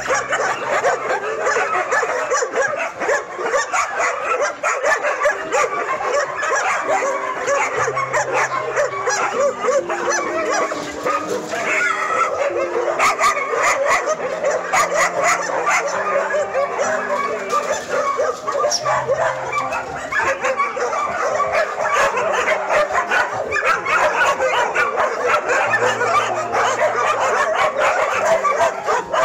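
A large pack of kennelled dogs barking over one another in a dense, unbroken chorus.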